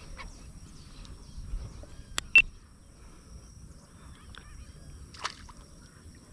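Riverbank ambience: a steady high insect drone with faint bird chirps over a low rumble of outdoor noise. Two sharp clicks come about two seconds in, the second much louder, and a short rustle follows about five seconds in.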